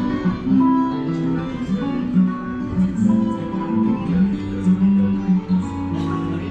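Ride soundtrack music: a plucked guitar melody over held notes.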